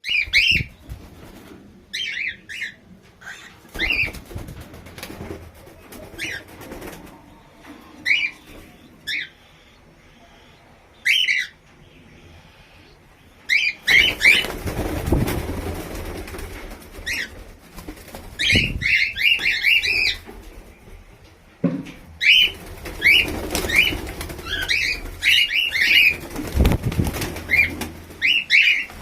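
Albino cockatiel calling with short, sharp chirps that slide down in pitch, scattered singly at first and coming in quick runs in the second half. Low rustling and a few soft thumps, like wings flapping or the bird moving about, sit underneath.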